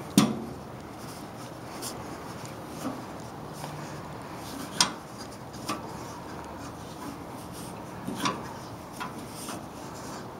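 Handling noise: rubbing with a few sharp knocks and clicks, the loudest just after the start, others about halfway through and near the end.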